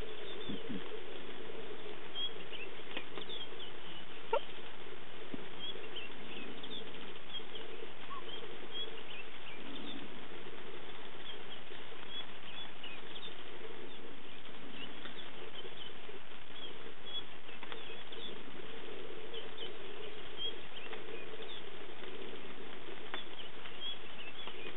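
Steady patter of light rain, with faint short high chirps scattered throughout and one brief sharp sound about four seconds in.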